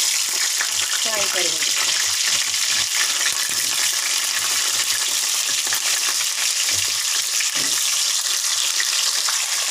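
Cauliflower florets and cumin seeds frying in hot oil in a kadhai: a loud, steady hissing sizzle with fine crackling.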